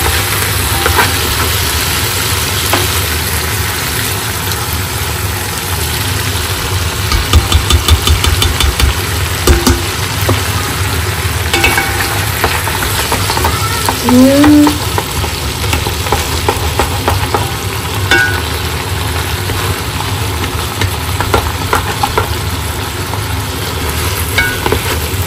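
Meaty bones and tomato paste sizzling in a metal pot while a spatula stirs and scrapes them, with a quick run of scraping strokes about seven seconds in. The tomato paste is being fried into the meat at the sautéing stage. A brief rising squeak-like tone comes about halfway.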